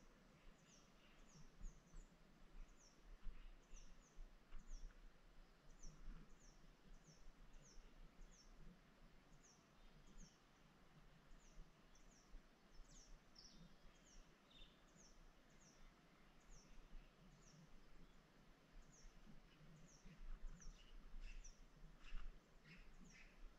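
Faint outdoor ambience with a bird repeating short, high, downward chirps, about one and a half a second, over a low rumble.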